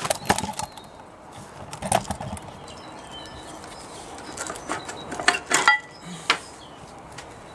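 Sharp metallic knocks and clinks as a Jaguar E-Type rear brake caliper is tapped up from underneath and worked loose off its disc, with a cluster of ringing clinks about five seconds in.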